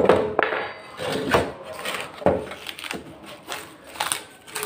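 Irregular knocks and scraping from hand work on an old gas stove under repair, about half a dozen separate strikes.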